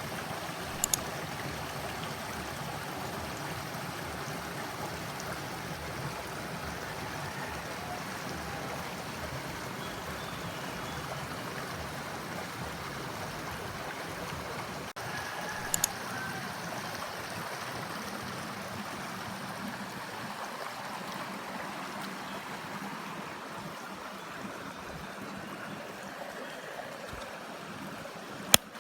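Steady rushing noise of running water, with three brief sharp clicks spread through it, the loudest near the end.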